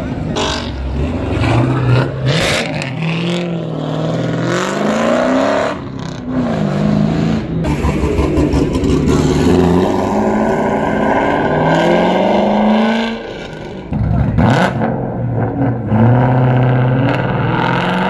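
V8 sports cars, among them a Ford Mustang GT and a C5 Corvette, revving and accelerating away one after another. Each engine note rises and falls over a few seconds through the gears, with a short lull between cars.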